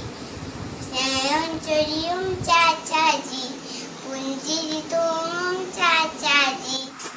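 A young girl singing alone, without accompaniment, in short phrases with brief pauses between them.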